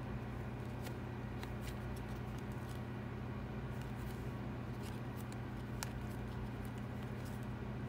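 Baseball cards being flipped and slid through the hands one by one: faint, scattered ticks and rustles of card stock, a sharper one a little before six seconds in, over a steady low hum.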